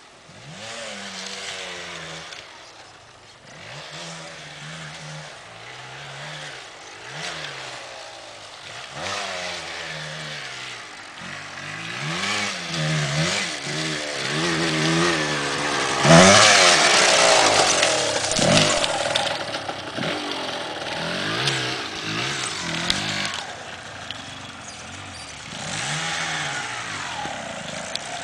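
Enduro dirt bikes, a Yamaha DT 125 and an Aprilia, riding a sandy forest track, their engines revving up and down again and again. The engine noise swells to its loudest about sixteen seconds in as a bike comes close, then eases off.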